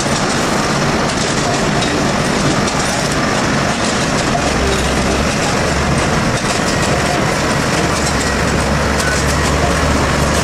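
A railway track-laying machine running steadily: a loud, dense mechanical noise over a low engine hum, and the hum grows stronger about four seconds in.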